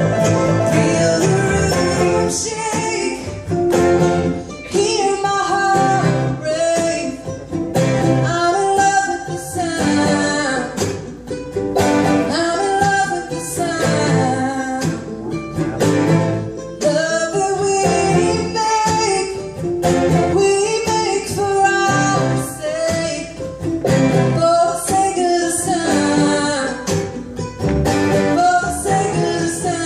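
Live bluegrass band playing a song: a woman sings lead over strummed acoustic guitars, a picked five-string banjo and upright bass.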